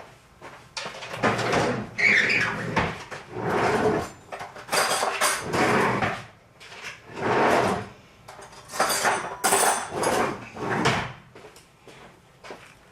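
Kitchen handling noise: dishes, cutlery and cupboard doors scraping and clattering in a string of short bursts, about eight over some ten seconds.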